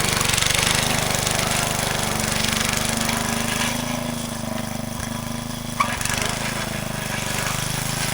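Small gasoline engine of a garden tiller running steadily with a rapid, even firing beat, as the garden is tilled up for the winter. There is a single sharp click about six seconds in.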